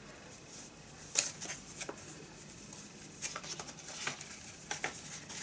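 A 7-inch vinyl single and its paper sleeve being handled, with rustling and scraping of the paper and a series of short sharp clicks, the loudest about a second in.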